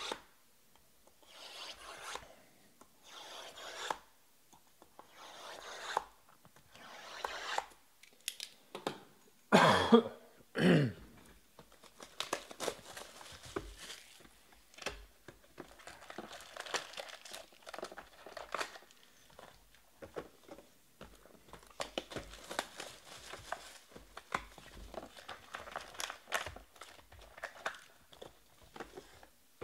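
Cellophane shrink wrap being slit and torn off a trading-card hobby box, then crinkling as the box is opened and its packs handled: a run of short swishes about a second apart, a loud tear about ten seconds in, then steady crinkling and rustling.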